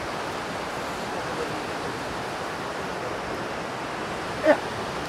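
Parvati River rapids rushing steadily over boulders. About four and a half seconds in comes one brief, loud call.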